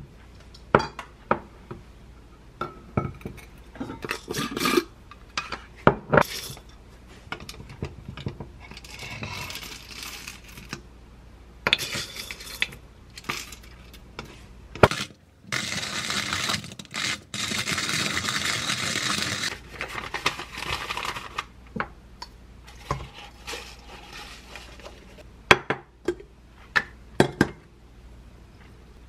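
Kitchen handling sounds of coffee-making: clicks and knocks as a wooden Caferia hand coffee grinder is handled and coffee beans are scooped from a glass jar. Past the middle comes about four seconds of dense, continuous crunching as the beans are ground in the hand mill. Near the end there are a few sharp clinks as a ceramic dripper is set on a glass coffee server.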